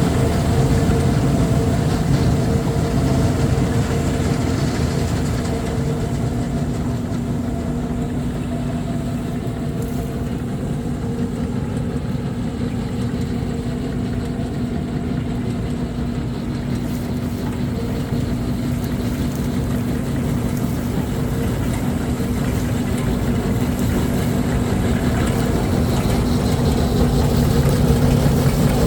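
Diesel engine of heavy farm machinery running steadily, with a constant humming tone over the drone; it grows somewhat quieter through the middle and louder again near the end.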